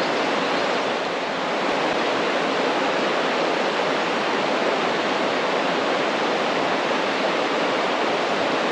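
Water rushing steadily over waterfalls, a continuous even rush with no breaks.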